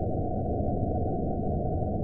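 Horror-film ambience sound effect: a steady, dark, low noise drone with a faint thin high tone held above it, unchanging throughout.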